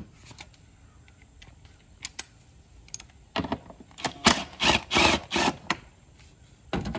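Milwaukee cordless ratchet run in several short bursts about halfway through, backing out a 10 mm bolt, with one more short burst near the end.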